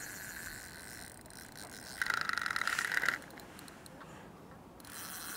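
Fishing reel clicking rapidly for about a second, starting about two seconds in, as a hooked fish is played on the rod.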